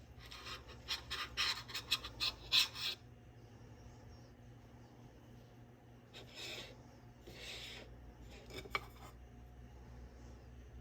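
A spoon scooping into sweet potato casserole, a quick run of rough scraping and crunching strokes through the pecan topping. A few seconds later come two softer scrapes and a couple of light clicks.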